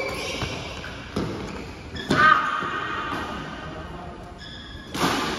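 Badminton rackets striking a shuttlecock: about four sharp hits, each echoing in a large hall, with short high squeaks between them.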